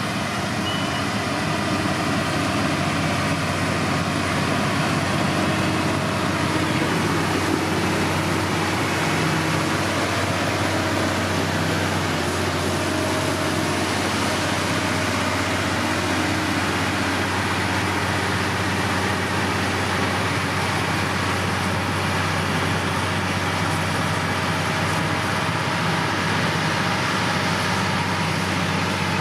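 Diesel engine of heavy road-building machinery running steadily, a constant low hum with a noisy hiss over it.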